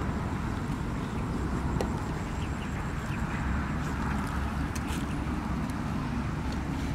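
Steady low rumble of wind buffeting the microphone in an open field, with a few faint ticks.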